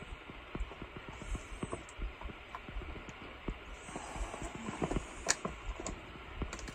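Trekking pole tips and footsteps clicking and tapping irregularly on granite boulders, with one sharper click about five seconds in, over a steady hiss.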